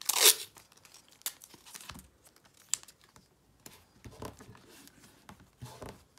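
Paper masking tape being torn with one short, loud rip right at the start, followed by light rustling and small clicks of paper and tape being handled and pressed onto the page.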